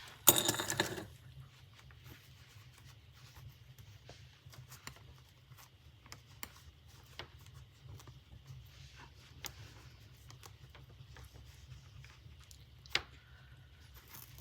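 Hands handling small craft materials: a loud rustling clatter in the first second, then faint scattered clicks and taps, with a sharp click near the end, over a low steady hum.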